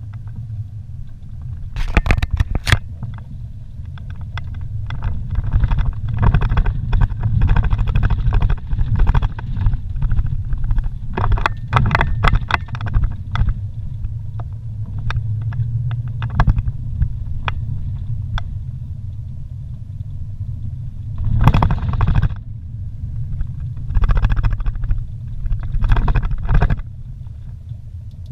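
Vehicle driving slowly over a rough dirt road, heard from inside the cab: a steady low rumble of engine and tyres with frequent rattles and knocks as it jolts over bumps. Clusters of louder jolts come about two seconds in, around twelve seconds, and three times near the end.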